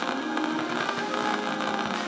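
AM broadcast station playing music through a Yaesu FRG-7 receiver tuned near 1500 kHz, buried under a crackling, frying-sounding radio-frequency interference noise from an unidentified source in the house.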